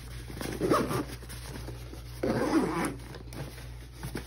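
Zipper of a packed fabric sling bag being pulled closed, two rasping strokes, the second longer.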